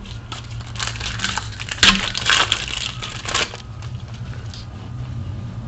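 Trading cards rustling and sliding against each other as they are flipped through by hand, in a cluster of dry scrapes loudest about two seconds in.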